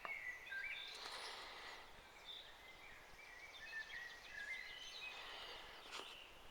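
Faint birdsong: scattered short, high chirps over a quiet outdoor hiss, with a soft click at the start and another near the end.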